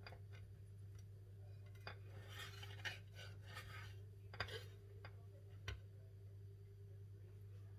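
Knife cutting through a dense fruit cake, with faint scrapes and a few clinks of the blade against the plate.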